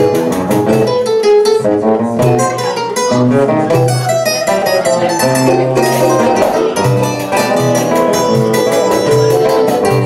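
A choro ensemble playing live: a small guitar and a banjo pick a quick, busy melody over the steady jingling beat of a pandeiro.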